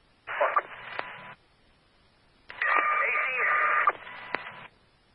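Two short, garbled transmissions on a fire department radio channel, heard through a scanner feed. Each keys up and cuts off abruptly: the first lasts about a second and the second about two seconds, with the channel near silent between them.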